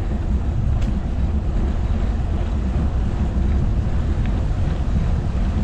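Wind buffeting the microphone of a moving bicycle: a steady low rumble, with a few faint clicks.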